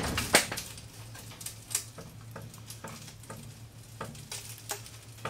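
Scattered light clicks and ticks, with one sharper click about half a second in, over a steady low hum: the front suspension of a Ford F100 settling as a floor jack lowers it.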